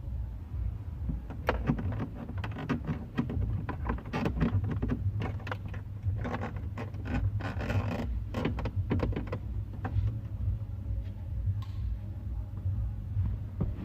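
Clicks, knocks and scraping of plastic trim and cable as a claw pickup tool is worked behind a car's dash panels to fish through a microphone lead, over a steady low rumble. The clicking is densest in the first two thirds and thins out near the end.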